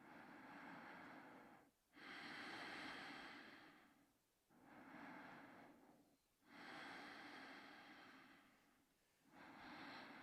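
A sleeping person snoring: slow, noisy breaths in and out, about one every two seconds, five in all.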